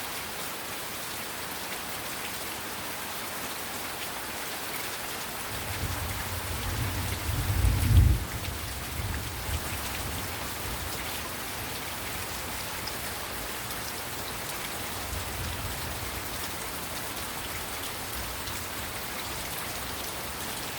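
Heavy rain falling steadily, a dense even hiss. A low rumble builds from about six seconds in, peaks loudest around eight seconds and falls away, and a fainter rumble comes about halfway through.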